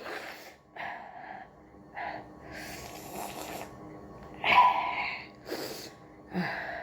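A person giving a series of short sniffs, snorts and sharp breaths, with a louder sneeze-like burst about four and a half seconds in. The nose is being tickled with the back end of a matchstick to set off a sneeze.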